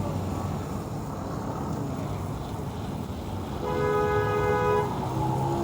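A steady low rumble, with a single pitched horn-like tone sounding for about a second near the end.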